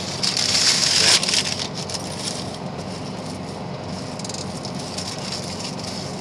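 Paper food wrapper crinkling loudly for about a second, then only a steady low drone inside the truck cab.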